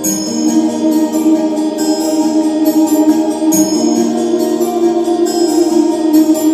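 Background music with long held notes that change every second or two.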